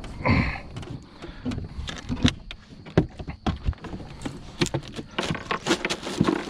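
Irregular small clicks, knocks and rattles of gear being handled.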